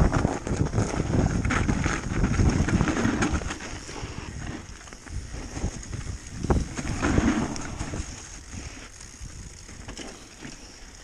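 Wind rushing over the camera microphone as a downhill mountain bike rides a snowy trail, with knocks and rattles from the bike over bumps. The rush is strongest for the first few seconds, then eases, with one sharp knock a little past halfway.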